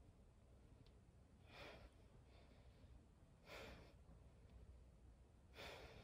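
Faint breathing of a woman working through plank shoulder taps: three soft breaths about two seconds apart.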